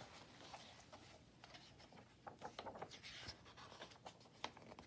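Near silence: room tone with a few faint, soft taps and rustles.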